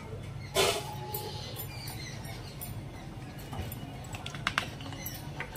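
Kitchen utensils and containers being handled at the stove: a brief clatter about half a second in, then scattered light clicks and taps over a faint steady hum.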